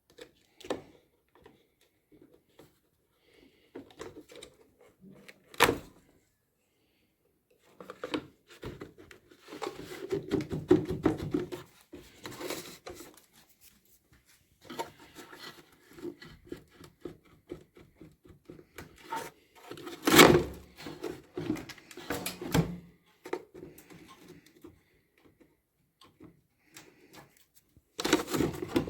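Hand work on a washing machine: irregular clicks, scraping and handling of parts and tools, with a few sharp knocks, the loudest about twenty seconds in.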